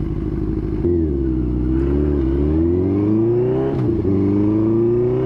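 Benelli TNT600's inline-four engine pulling under acceleration while riding. The revs climb, drop sharply at a gear change just under four seconds in, then climb again.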